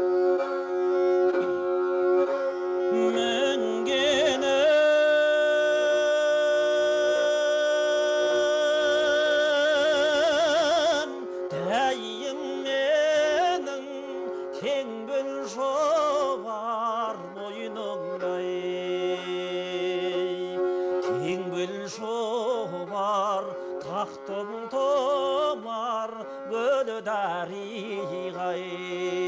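Kobyz, the Kazakh two-string bowed instrument, playing a slow melody over a steady drone. A long held note with wide vibrato runs from about five to eleven seconds in, followed by shorter melodic turns.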